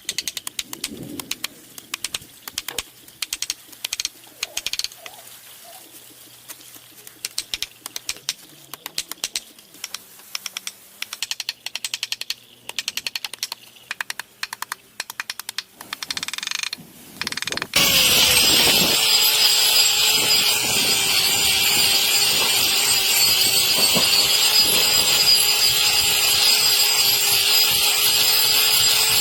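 A run of sharp, irregular clicks and scrapes, then, about two-thirds of the way in, an electric power tool starts suddenly and runs loud and steady with a held motor tone, cutting into an overgrown cow hoof.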